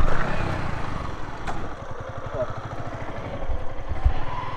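Motorcycle engine idling with a steady low pulse.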